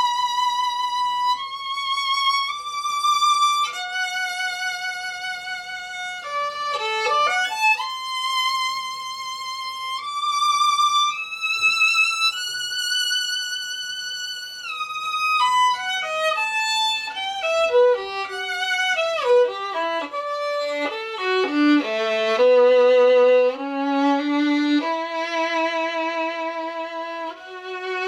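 Solo violin played with the bow: long high notes with vibrato through the first half, then a quicker run of notes descending about two thirds of the way in, settling into lower held notes near the end.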